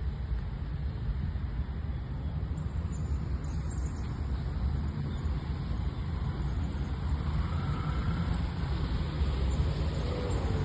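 Steady low rumble of road traffic: vehicles driving on a city street.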